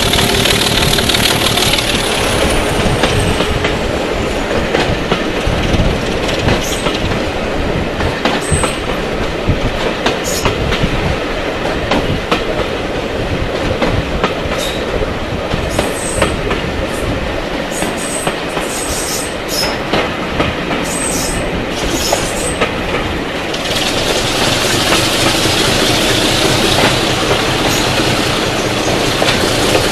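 Diesel-hauled heritage train running along the line, heard from out of a carriage window: wheels clattering over the rails, with short high-pitched wheel squeals on and off through the middle stretch.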